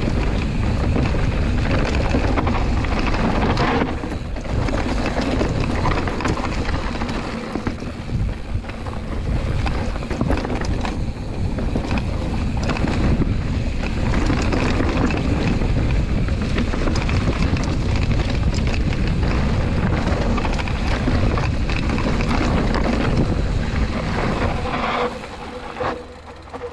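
Mountain bike riding fast down a rocky trail: wind buffeting the action camera's microphone in a steady rush, with the tyres crunching over stones and the bike rattling. The noise eases near the end as the bike slows.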